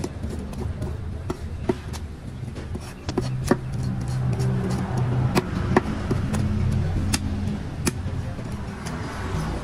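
Sharp clicks and knocks, about seven of them at irregular intervals, over a steady low hum.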